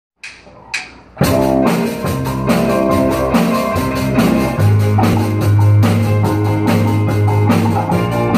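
Small live band with drum kit, electric guitar and keyboard starting a rock song: two short clicks, then the full band comes in about a second in with a steady drum beat, and a heavy low note enters about halfway through.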